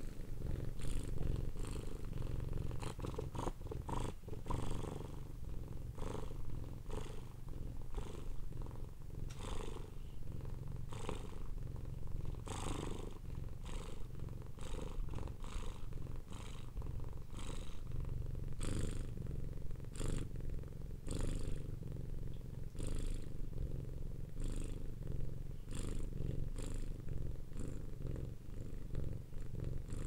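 Domestic cat purring continuously, the low purr rising and falling in a steady rhythm about once a second.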